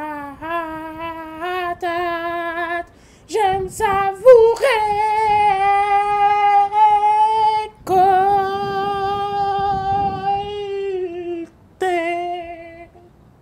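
A woman's voice singing alone without accompaniment, in several phrases with long held notes. The singing stops shortly before the end.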